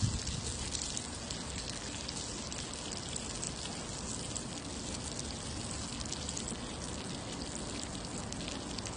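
Pork belly slices sizzling steadily on a hot grill plate, a dense fine crackling, with a brief knock of tongs on the plate right at the start.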